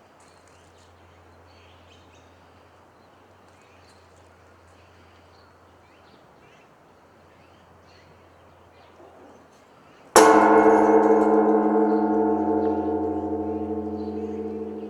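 Zojoji Temple's great bronze temple bell (bonsho) struck once by a swinging wooden beam about ten seconds in, then ringing on with many steady tones that slowly fade. Before the strike there is only faint background.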